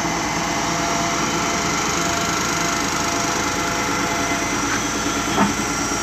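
Truck-mounted concrete pump running steadily, its engine and hydraulics giving a constant mechanical hum with a faint whine. A single sharp knock comes about five and a half seconds in.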